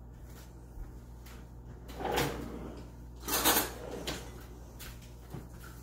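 A kitchen drawer sliding open and then shut: two short scraping rushes about a second and a half apart, the second the louder.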